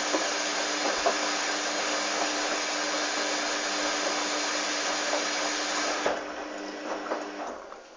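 Hoover Dynamic washing machine running with a steady hum and rushing noise. The noise cuts off sharply about six seconds in and dies away over the next second and a half.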